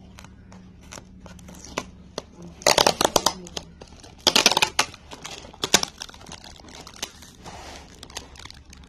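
Plastic mailer bag and clear packing tape being pulled and peeled off a cardboard box: crinkling and crackling in short bursts, loudest about three and four and a half seconds in.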